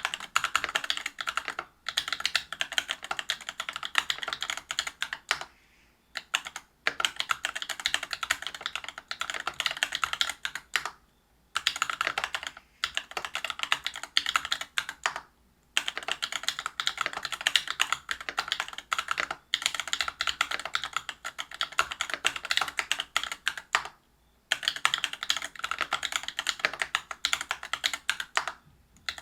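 Rapid typing on a Whale 75 mechanical keyboard with stock, unlubricated Cobalt POM linear switches (63.5 g), a brass plate and Geekark PBT keycaps: a dense run of key clacks that breaks off for several short pauses.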